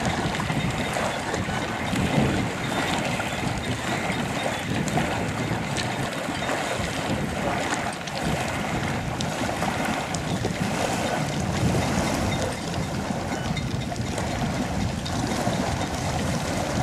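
Small lake waves lapping and washing against the edge of a concrete slipway, a steady wash mixed with wind on the microphone.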